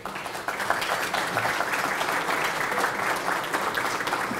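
Audience applauding: a roomful of people clapping, which thins out near the end.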